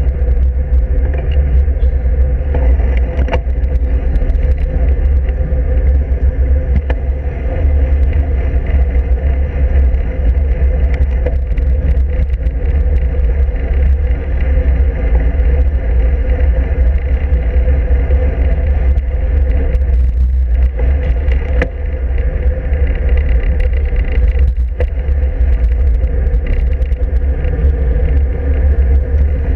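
Steady low rumble of wind and road vibration on a handlebar-mounted camera of a road bicycle riding at speed.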